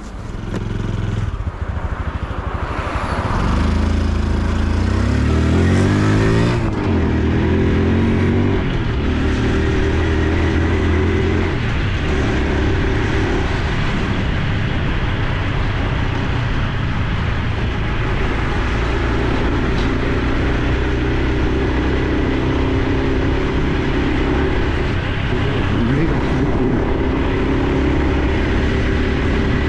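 Honda Super Cub C125's air-cooled single-cylinder 125 cc engine pulling away and accelerating up through the gears in a few rising steps. It then settles into a steady cruise with a few shifts, under a constant rush of wind and road noise.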